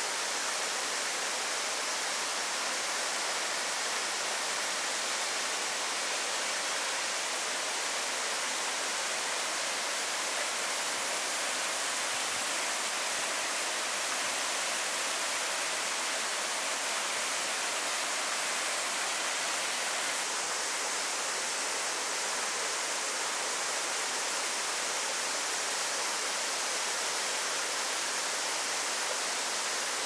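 Steady rush of water in a mountain gorge, an even unbroken noise that holds at the same level throughout.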